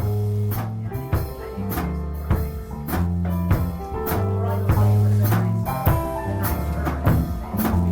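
Live jazz-rock band playing an instrumental intro: drum kit keeping a steady beat with cymbal hits, over bass guitar, electric guitar and keyboard chords.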